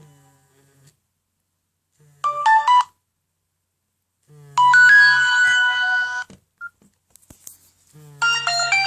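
Nokia N97 Mini ringtones playing through the phone's speaker, each with the vibration motor buzzing. A short electronic melody comes about two seconds in, a longer one runs from about four and a half seconds to about six, and another starts near the end.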